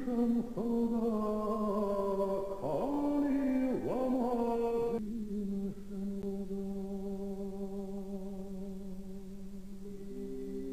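Slow ambient background music of long held, drone-like tones. In the first half a few notes swoop sharply down and back up in pitch. About halfway through the texture thins to steady sustained notes, and one steps up in pitch near the end.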